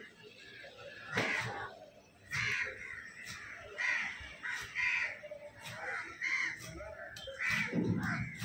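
Crows cawing over and over, a harsh call about once a second, mixed with the thuds and knocks of a heavy cleaver chopping through fish on a wooden slab.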